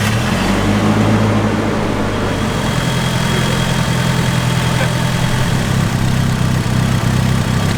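Nissan 180SX engine idling steadily. It is being run to warm up and open the thermostat so that air bleeds out of the freshly filled radiator.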